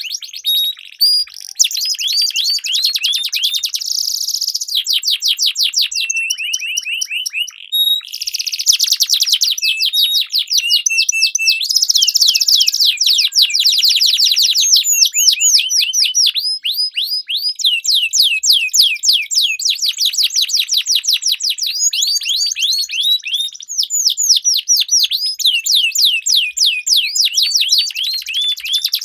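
Domestic canaries singing long rolling trills: rapid strings of repeated high notes, one phrase after another with brief breaks.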